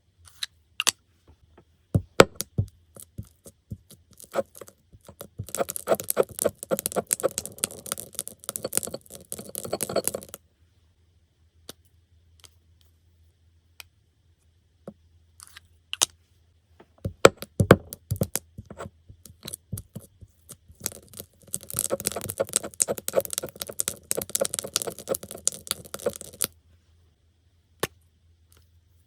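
Slime being worked by hand, with a fast crackle of small clicks and pops in two stretches of about five seconds each, and single clicks and taps between them.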